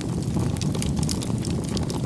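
Wood fire crackling: a steady low rumble of flames with many small, scattered sharp pops.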